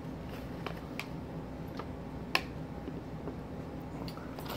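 Sparse small clicks and taps from small plastic toys and packaging being handled on a table, over a faint steady low hum.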